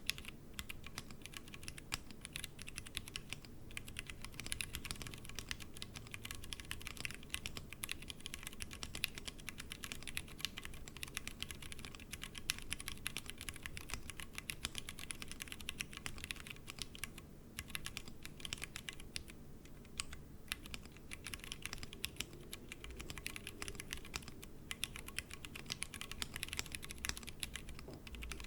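Continuous typing on a Tofu60 60% mechanical keyboard with stock Cherry MX Brown tactile switches, set on a desk mat. The keys give a rapid, steady stream of clacks with a few short pauses.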